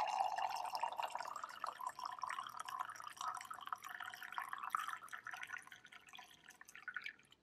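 Coffee pouring in a steady stream from a stainless-steel thermal carafe into a ceramic mug, the pitch of the splash rising slowly as the mug fills. The stream grows fainter and stops near the end.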